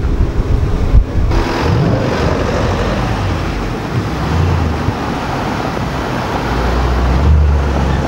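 Range Rover Sport SVR's 5.0-litre supercharged V8 through its aftermarket exhaust. Wind buffets the microphone for the first second or so; then the engine revs up and the SUV drives up and past, loudest near the end as it goes by.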